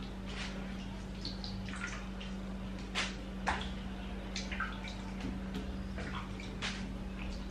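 Scattered light clicks, drips and small splashes of hands peeling boiled cocoyam and dipping into a bowl of water, over a steady low hum. The two sharpest clicks come about three seconds in, half a second apart.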